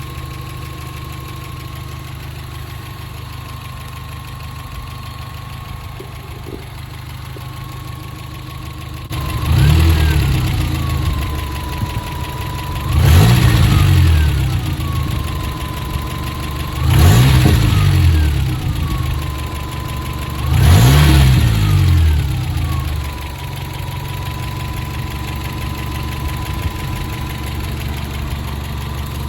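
Rebuilt Toyota 22RE 2.4-litre four-cylinder engine idling, then revved four times, about once every four seconds, dropping back to idle after each. A steady whine rises and falls with each rev.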